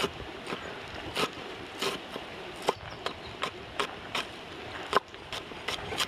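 Broad-bladed kitchen knife chopping fresh herbs on a wooden cutting board: a series of sharp knocks of the blade hitting the wood, about two a second at an uneven pace, one strike near the end of the fifth second louder than the rest.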